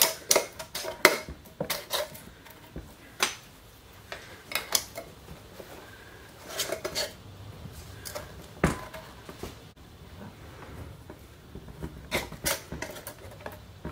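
Metal screw bands being set on and twisted onto glass canning jars over their flat metal lids, giving a scattered series of sharp metal clicks and clinks. The bands are turned finger-tight, since over-tightening can buckle the lids.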